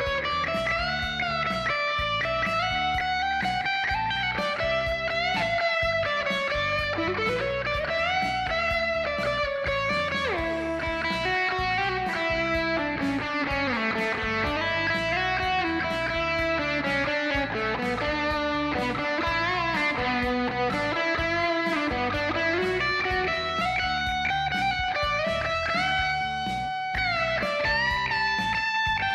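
Aria Pro II Magna series electric guitar playing an improvised lead line, with many picked notes and frequent bends and slides.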